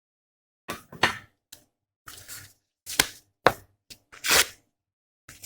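A series of sharp clicks and taps with short scraping sounds from small hand tools working on a laptop motherboard at the bench, starting a little under a second in; the longest is a hissing scrape about four seconds in.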